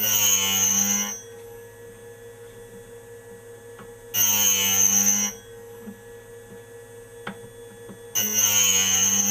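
Cuttermasters CMS 03C end mill grinder running with a steady motor hum. It makes three short, loud grinding bursts about four seconds apart as the end mill is pushed into the wheel flute by flute for the primary grind.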